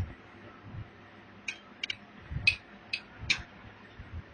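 Sharp plastic clicks and light knocks from a laser printer's parts being handled during disassembly. About six quick clicks come over two seconds, some with a dull low knock underneath.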